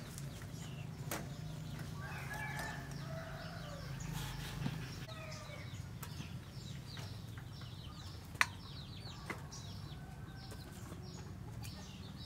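Chickens clucking, with short high chirps of small birds, over a low steady hum. A few sharp metallic clicks, the loudest a little past the middle, come from metal tongs striking a metal tray as charred eggplants are lifted from the grill onto it.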